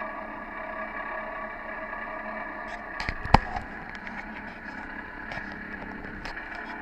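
Fishing boat's engine running steadily, with a cluster of sharp knocks about three seconds in, one much louder than the rest, and a few lighter knocks later.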